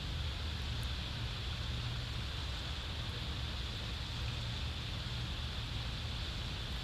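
Steady outdoor background noise from a nest-cam microphone: a low rumble under an even hiss, with no calls or other distinct events.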